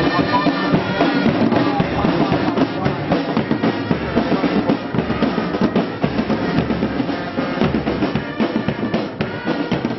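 Military marching band playing a march, with snare and bass drums beating a steady rhythm under the pitched instruments.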